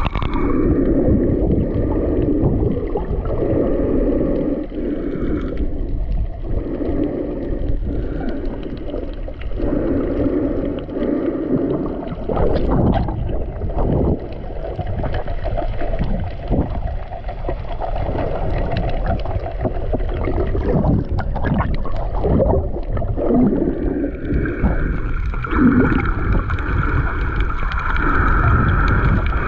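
Motorboat under way: its engine drones steadily while water rushes and slaps against the hull, with wind rumbling on the microphone.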